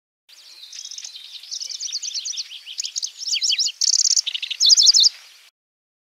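Pallas's grasshopper warbler singing one phrase of about five seconds: a varied, chattering run of rapid high notes that builds to louder fast trills near the end, then stops.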